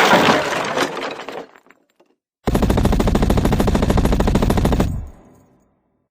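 Sound-effect clips: a loud, noisy crash that fades out within about a second and a half, then after a short pause a rapid, even burst of automatic gunfire lasting about two and a half seconds.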